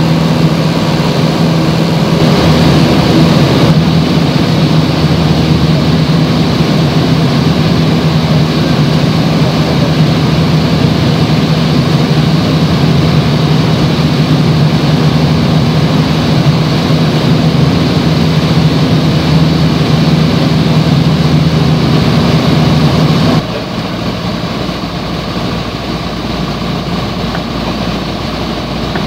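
Piper PA-28's piston engine and propeller droning steadily, heard from inside the cabin. The level drops suddenly about 23 seconds in, and the drone carries on more quietly.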